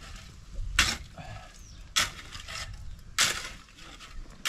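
A steel shovel cutting and scraping into a pile of hand-mixed wet concrete, a short sharp scrape about every second and a quarter as the mix is turned.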